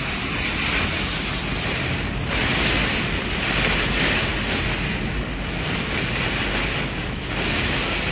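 Steady rushing noise of a heavy storm: rain and flowing floodwater, with wind buffeting the microphone as a low rumble that swells and eases.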